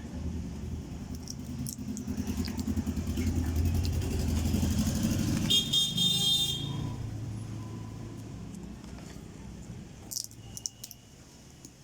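A motor vehicle passing, its low rumble building up and fading away, with a brief horn toot at its loudest about five and a half seconds in. A few sharp clicks near the end.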